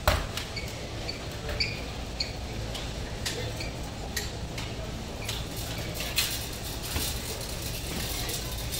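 Ambience of a warehouse store aisle: a steady low hum with scattered light clinks and knocks.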